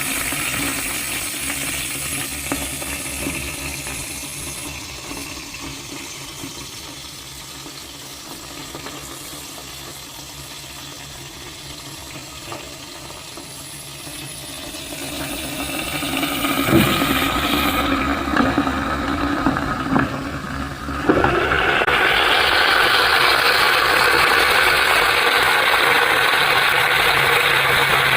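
Pressure cooker on the stove coming up to pressure, with a low steady noise at first. A little over two-thirds of the way through, a loud steady hiss of steam breaks out with a rattling, as the weighted valve starts to jiggle: the cooker has reached pressure.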